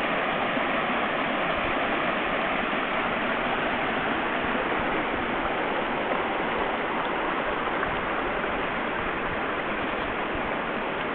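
Shallow rocky creek flowing over stones and riffles: a steady, even rush of water that does not change.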